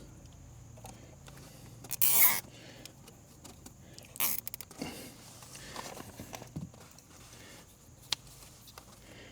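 Hand-work noises of a wire harness being secured: rustling and small clicks, with a loud rasping burst about two seconds in and a shorter clicking rasp just after four seconds.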